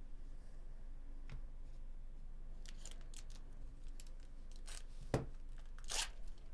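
A 2024 Bowman Chrome baseball card pack being torn open by hand. A faint click comes about a second in, then a run of short, crisp rips and crinkles of the pack wrapper through the second half, as the cards are pulled out.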